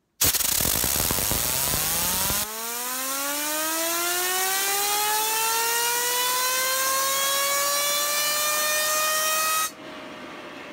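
Compressed air from a blow gun hissing against a stainless steel tri-spinner fidget spinner, spinning it up: the spinner's whine climbs steadily in pitch. Near the end the air cuts off abruptly, leaving only the spinner's quieter, steady whine.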